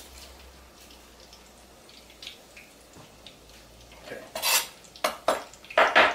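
Chef's knife cutting into a whole peeled onion on a cutting board: a few sharp knocks of the blade against the board in the last two seconds, the loudest near the end.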